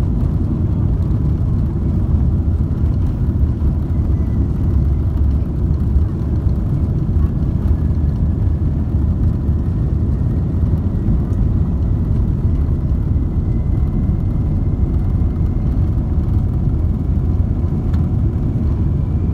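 Cabin noise of a Boeing 747-8 taxiing: a steady low rumble from the GEnx engines at low thrust and the rolling airframe, with a faint high whine.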